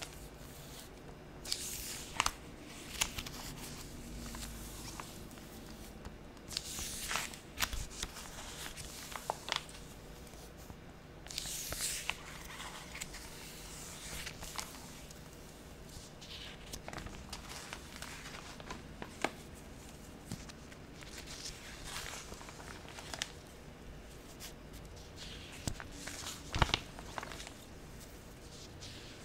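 Paper pages being flipped: irregular crisp swishes with light ticks, one every couple of seconds.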